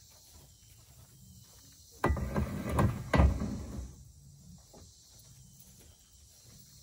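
A few knocks and clunks of a rubber-coated Unistrut channel bar being set down on a roof rack, the loudest about three seconds in.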